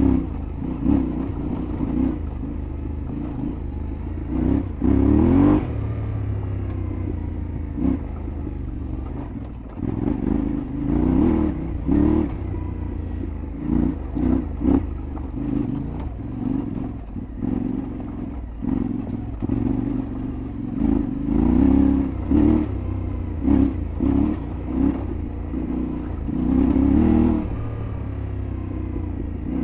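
Yamaha Ténéré 700 World Raid's 689 cc parallel-twin engine under way off road, revving up and easing off again and again, with frequent clattering knocks over the rough ground.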